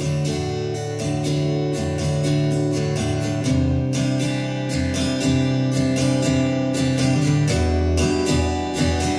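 Background music built on steadily strummed guitar chords with a regular rhythm.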